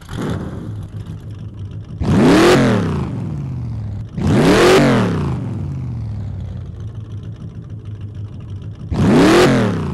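Car engine idling and revved three times, each rev a quick rise and fall in pitch: about two seconds in, again about four seconds in, and once more near the end.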